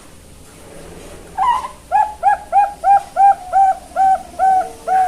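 Young Bangkok-strain zebra dove (perkutut) singing: a short opening note, then a quick run of about ten rounded coos, roughly three a second, starting about a second and a half in.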